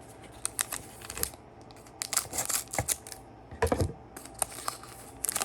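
Scattered clicks and crinkles of a cardboard trading-card box and its foil card packs being handled and opened by hand, in short clusters with pauses between.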